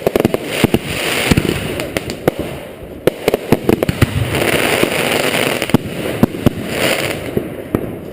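Consumer fireworks going off during a display: many sharp bangs and pops in quick, irregular succession, with stretches of hissing crackle between them.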